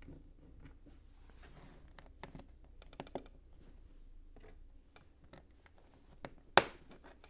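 Plastic LEGO pieces clicking as they are handled and pressed together onto a plate: a scattering of light clicks, with one sharp, louder snap near the end.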